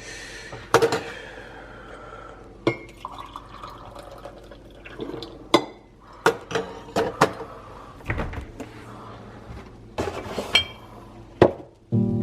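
A series of sharp clanks and clinks of hard objects knocking together, about a dozen spread unevenly, some ringing briefly after the hit.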